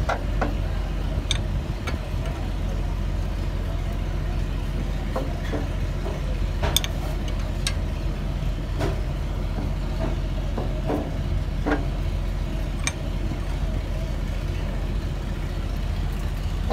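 Steady low rumble of an idling engine, with scattered light metallic clicks and taps about every second or two.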